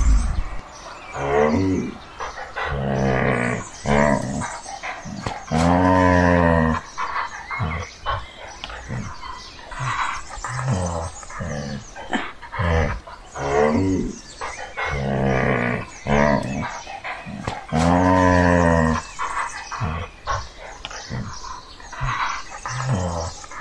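Brown bears growling and roaring over and over as they wrestle. The calls are short and deep, with two longer, louder moaning roars about six seconds in and again near eighteen seconds.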